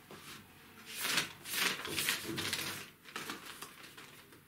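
Paper pages of a spiral-bound notebook rustling as they are handled and flipped, in several quick rustles, most of them between about one and three seconds in.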